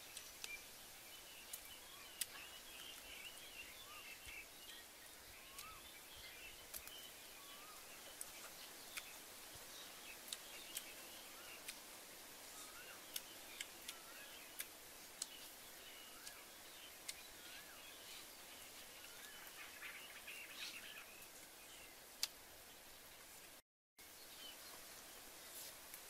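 Faint forest ambience with small birds chirping and twittering, and scattered sharp clicks. The sound drops out briefly near the end.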